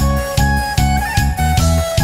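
Background music with a steady, driving beat, its chords pulsing about two to three times a second.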